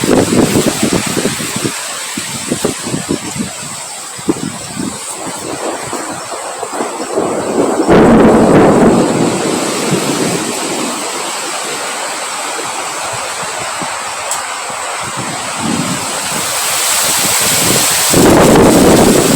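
Strong wind blowing in gusts, buffeting the microphone with low rumbles. The gusts swell hardest about eight seconds in and again near the end.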